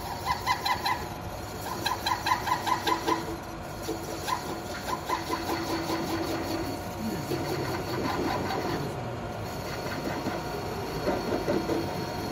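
Manual metal lathe cutting a spinning workpiece: the tool squeals in rhythmic pulses, about five a second, for the first few seconds. A lower, steadier squeal comes and goes after that, over the running machine.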